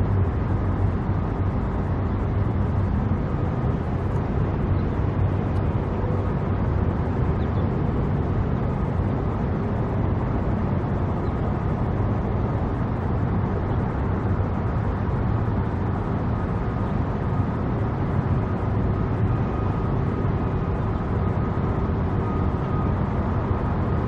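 Steady low rumble of motor vehicles with a faint constant hum, unbroken and even in level.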